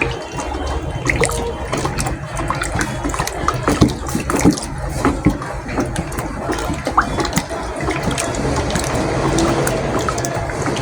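A thick, freshly made hair conditioner mixture being stirred by hand in a container: continuous liquid sloshing with scattered clicks and knocks as the stirrer strikes the container.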